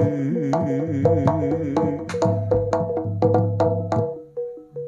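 Live Javanese jaranan music: a steady run of struck, ringing percussion notes over a drum pulse, with a wavering melodic line over the first two seconds. The playing thins out near the end.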